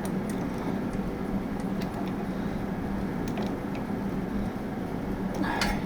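Steady low mechanical hum with one constant low tone, with a few faint light clicks and taps over it.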